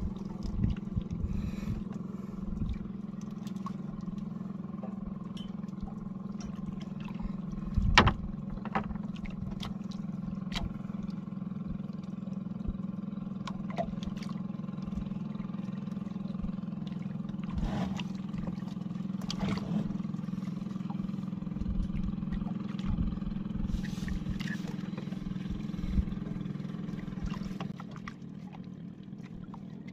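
Steady drone of a boat engine running, with a few sharp knocks of handling against the wooden boat, the loudest about eight seconds in. The drone drops off near the end.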